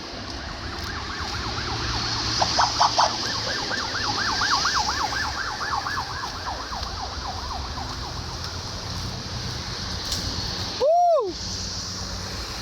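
Distant emergency-vehicle siren in a fast yelp, sweeping up and down several times a second, over a steady low rumble of road traffic. About eleven seconds in, a short loud tone rises and falls once.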